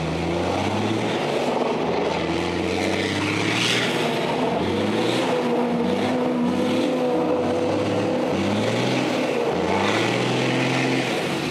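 Kamaz Dakar rally truck's diesel engine revving, its pitch climbing and dropping back again and again as the truck slides round in circles on wet tarmac, over a steady hiss.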